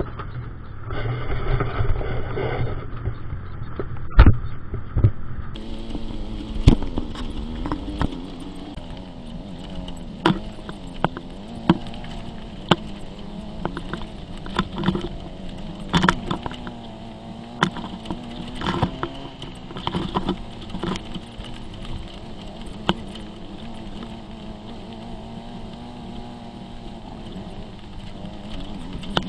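Dune buggy engine running steadily at crawling speed, with frequent sharp knocks and rattles from the frame and suspension as it bumps over rock.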